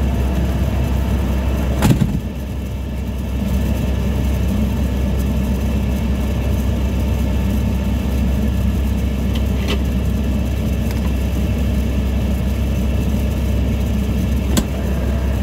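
Diesel engine idling steadily with a low hum, heard from inside the truck cab. A sharp knock about two seconds in is the loudest sound, and a smaller click comes near the end.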